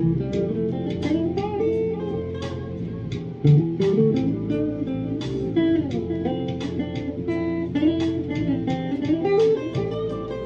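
A Squier junior Stratocaster-style electric guitar played lead: a stream of picked single notes, several a second, with notes gliding up and down in pitch.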